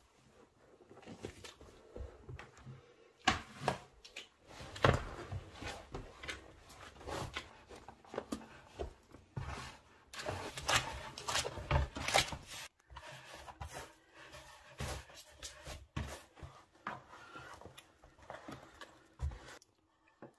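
Hands kneading a large batch of stiff flour-and-water dough in a plastic bowl: irregular thumps and rubbing as the dough is pressed, folded and pushed against the bowl. The kneading stops shortly before the end.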